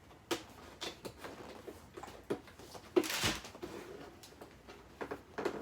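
Cardboard retail box being handled and opened: scattered light clicks and rustles, with one louder tearing or scraping noise about three seconds in.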